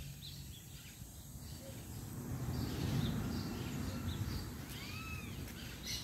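Faint birdsong: scattered high chirps, with two arched calls about five seconds in. Under it runs a low rumbling noise that swells around the middle.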